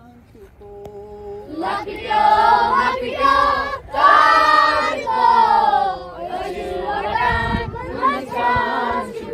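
A group of children chanting a Kashmiri poem together in unison, starting about a second and a half in and going on in phrases.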